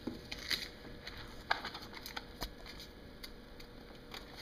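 Masking tape being peeled off and the vinyl graphic's paper handled: a few scattered crackles and sharp clicks, most of them in the first two and a half seconds.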